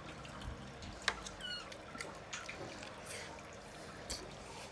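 Wet chewing and mouth sounds of someone eating, with a few light clicks of a metal fork against a plate, the sharpest a little over a second in, followed by a brief ringing squeak.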